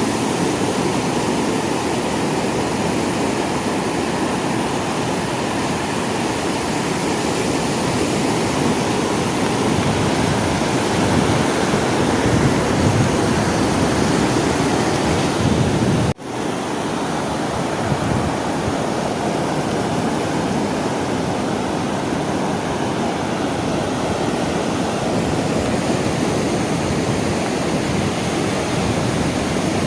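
Sea waves washing continuously onto a shore, a steady rushing surf. About halfway through the sound cuts out for a split second and swells back in.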